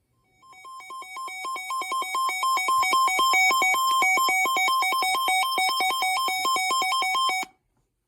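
Electronic emergency alert tone, the attention signal that introduces a severe thunderstorm warning. It warbles rapidly back and forth between two pitches, grows louder over its first few seconds, then cuts off suddenly.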